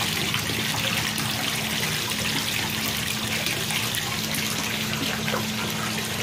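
Steady running and splashing water in a 300-gallon indoor pond, with a low steady hum underneath.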